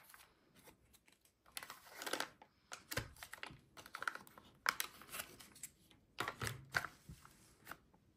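Clear plastic packaging and foil potion sachets crinkled and clicked by hand, in short irregular bursts of rustling with small taps.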